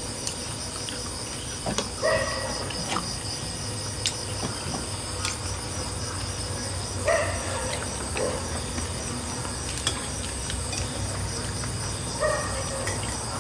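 Steady chorus of crickets trilling, with a few sharp clinks of spoons on dishes.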